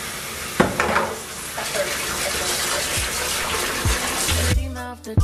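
Kitchen tap running into a stainless steel sink, the stream splashing into soapy dishwater as the basin fills, with a couple of knocks about a second in. Music comes in near the end.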